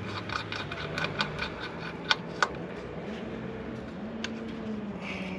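Ratchet wrench clicking as a bolt on a motorcycle's rear brake caliper is tightened down after fitting new pads, about four clicks a second for the first couple of seconds, then thinning to a few scattered clicks.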